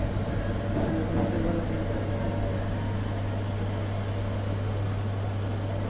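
Steady low machine hum with a constant rushing noise over it.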